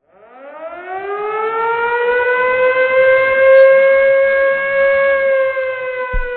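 A siren winding up, rising in pitch over the first couple of seconds and then holding a steady wail that sags slightly. A low thump comes in near the end.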